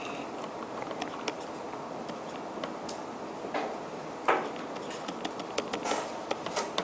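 Light, scattered taps and clicks of a stylus writing on a tablet over steady room hiss, with one louder tap about four seconds in.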